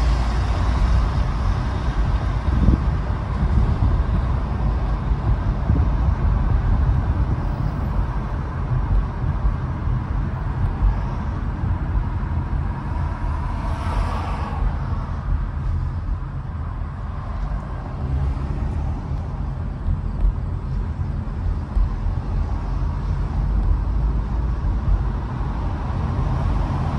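Road noise from a car being driven on a city road: a steady low rumble of tyres and engine. About halfway through there is a brief louder swell of noise.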